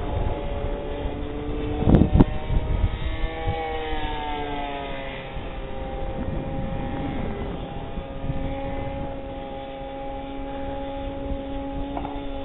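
Funtana radio-controlled aerobatic model airplane in flight. Its motor tone rises and falls for a few seconds, then holds steady, over wind rumble on the microphone. There are a couple of sharp thumps about two seconds in.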